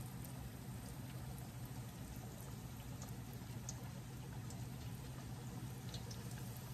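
Battered largemouth bass pieces frying in hot oil in a cast iron skillet: a steady soft sizzle with scattered small crackles, over a low steady hum.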